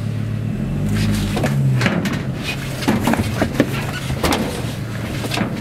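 Van engine idling as a steady low hum, rising briefly in the first couple of seconds, with scattered knocks and rustling from a live hen being handled inside the van.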